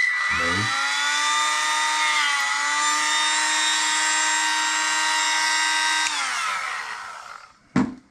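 Cordless rotary tool running at a steady high whine while its small bit cleans buildup out of a chrome faucet part. About six seconds in the motor is switched off and winds down with falling pitch, followed by a sharp click near the end.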